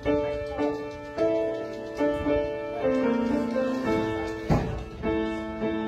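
Piano playing a slow postlude in chords, a new chord struck about once a second and each ringing and fading. A short rustle or knock sounds about four and a half seconds in.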